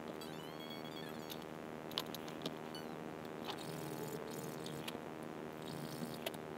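A few light clicks of a metal luthier's tool being picked up and set against the guitar's frets, with a short high squeak near the start, over a faint steady hum.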